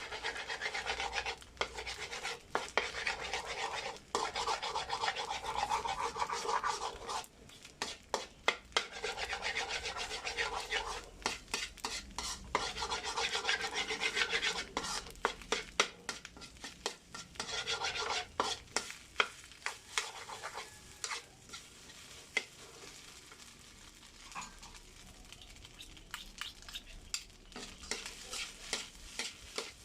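Garlic fried rice being stirred and tossed in a hot pan, the spatula scraping and clicking against the metal over a light sizzle. The stirring comes in spells, with pauses around four and seven seconds in, and grows quieter over the last third, leaving scattered clicks.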